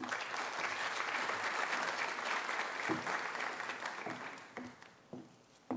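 Audience applauding, starting at once and dying away after about four seconds, with a single sharp knock near the end.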